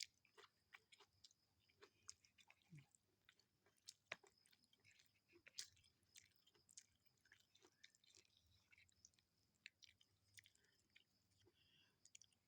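Faint close-up eating sounds: a person chewing a meal of rice and fish, with many small irregular mouth clicks.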